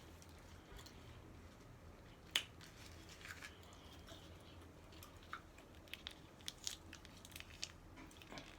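Person chewing food close to the microphone: faint, scattered mouth clicks and crunches, with one sharper click about two seconds in and a run of quicker clicks in the second half.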